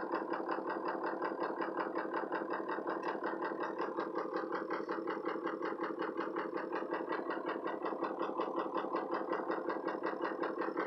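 Ford 6.0 Powerstroke V8 turbo-diesel idling with a steady, even diesel clatter. The engine idles rough and has lost its power, with no fault codes set.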